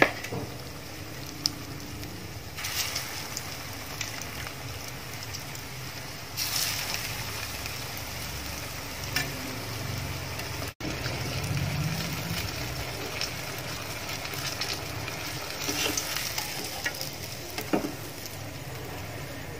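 Breadcrumb-coated banana cutlets deep-frying in very hot oil in a steel pan: a steady sizzle that swells louder at times. A few short clicks of a metal slotted spoon against the pan.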